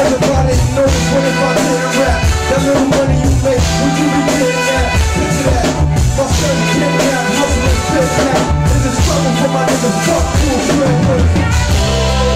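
Live hip hop band music: drum kit with a bass line that repeats every couple of seconds. The music shifts to a new pattern just before the end.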